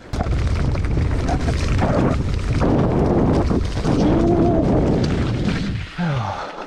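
Heavy wind buffeting and rumble on the microphone of a mountain biker's camera while riding. It comes in abruptly and holds loud and steady for about six seconds, then drops away near the end.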